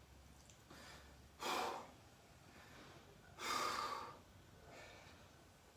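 A person breathing hard and catching their breath after a set of burpees. Two loud breaths come about a second and a half and three and a half seconds in, with fainter breaths between.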